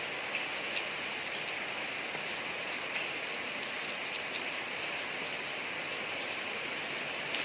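Steady rain falling on a street, an even hiss with scattered sharper drop ticks.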